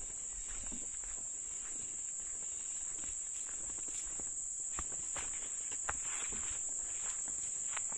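Insects chirring in one steady high-pitched drone, with a few footsteps and rustles through brush in the second half.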